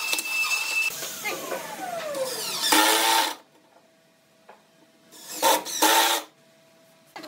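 A corded handheld power tool running against the wood, then switched off and winding down with falling pitch. A cordless drill then runs in three short bursts, drilling into the wooden joint.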